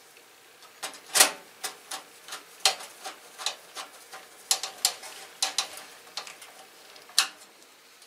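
Irregular light clicks and taps of metal parts in a desktop computer case, as the metal retaining guard over the expansion card brackets is fitted back in place, the loudest about a second in.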